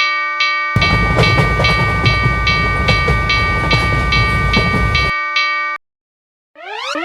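Japanese railroad crossing alarm ringing its repeated 'kan kan' about twice a second while a train rumbles past for about four seconds. The alarm stops about six seconds in. Near the end a quick run of falling whistle-like sound effects begins.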